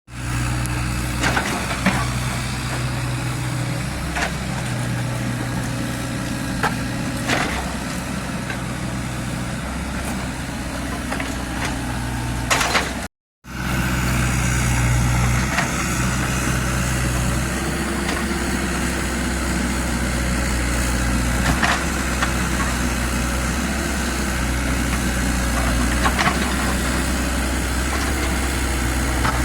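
Kubota U50 mini excavator's diesel engine running steadily, with occasional sharp metallic clanks. The sound drops out for a moment about 13 seconds in, then resumes.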